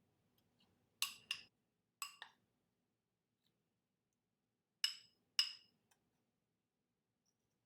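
A mixing utensil clinking sharply against a bowl, six ringing taps in three pairs, as butter and brown sugar are stirred together.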